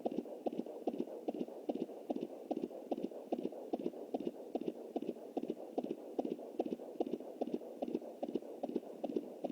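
Fetal heartbeat picked up by a Jumper handheld fetal Doppler at 20 weeks' gestation: a fast, even rhythm of whooshing beats through the Doppler's speaker.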